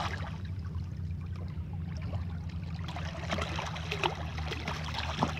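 Water splashing and sloshing as a large hooked conger eel thrashes at the surface, over a steady low rumble. A few sharper splashes come in the second half.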